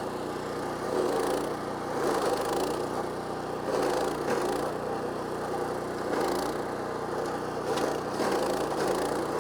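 PowerKing PK0803 stump grinder's 14 hp Kohler Command Pro engine running at speed while the carbide-toothed cutting wheel chews into a wood stump, with a louder grinding surge every second or two. The engine note dips briefly under the load of each bite.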